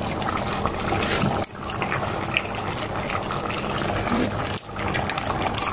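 Pork hamonado sauce simmering in an open pot: a steady bubbling with small pops, over a faint low hum.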